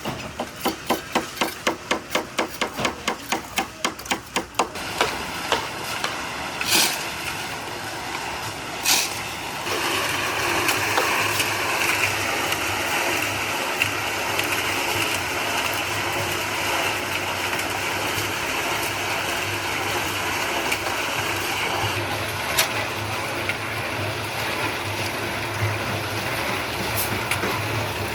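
A fast, even run of hammer-like knocks, about five a second, for the first five seconds, then two louder single knocks. From about ten seconds in, a steady machine starts running with a low hum and a rushing noise.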